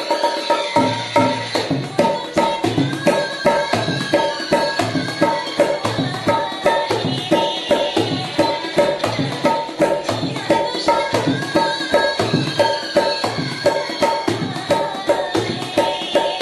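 Dholak drummed by hand in a steady, fast rhythm, played along with a song's melody.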